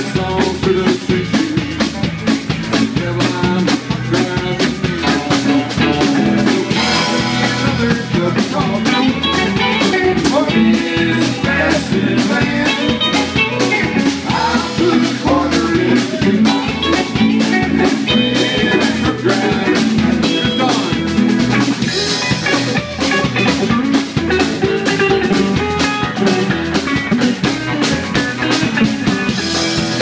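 Live band jamming: several electric and acoustic guitars, electric bass and a drum kit playing together, with a steady drum beat.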